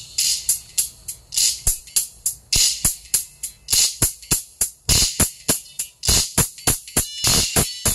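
Music played through a pair of Dainty DT-105 tweeters: sharp, jingling percussion hits in a quick rhythm, bright and thin with little bass.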